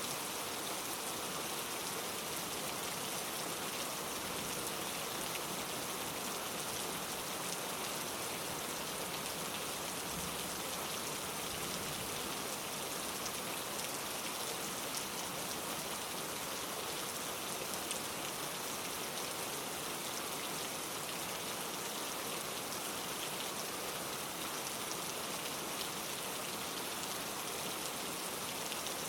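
Steady rain falling in a forest, with a dense patter of drops on leaves and surfaces.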